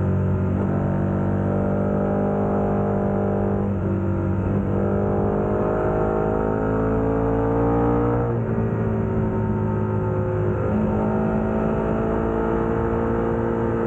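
KTM 1290 Super Adventure's V-twin engine through a Wings aftermarket exhaust, pulling hard under acceleration. Its pitch climbs and drops back four times at the gear changes.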